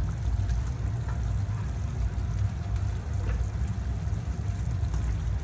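A pot heating on a gas stove burner: a steady low rumble with faint watery noise and a few light ticks.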